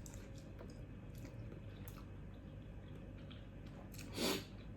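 Quiet chewing of food, with scattered small clicks, and a short louder noisy rush near the end.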